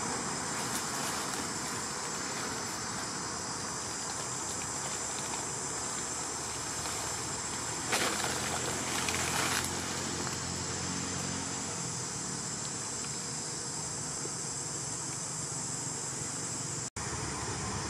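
Steady high insect drone over a constant background hiss, with a louder burst of noise lasting about a second and a half about eight seconds in; the sound cuts out for an instant near the end.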